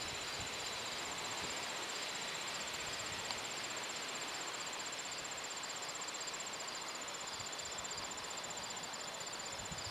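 Insects, crickets or similar, trilling steadily: a continuous high-pitched pulsing chirp over a faint hiss.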